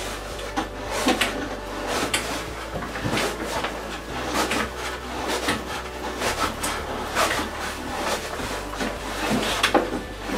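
Shower hose being unscrewed by hand from the bottom of an electric shower unit: irregular clicks, knocks and scrapes of the plastic fitting and hose as it is worked loose, a fitting that takes a while to come undone.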